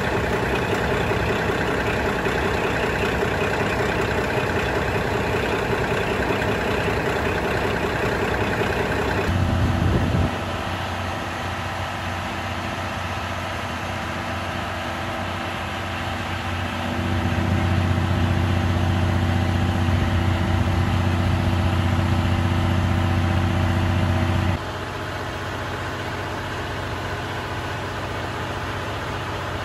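KiHa 183 diesel railcar's engines running steadily. The engine note changes about a third of the way in, and a louder, deeper hum holds for several seconds from just past halfway before cutting off suddenly.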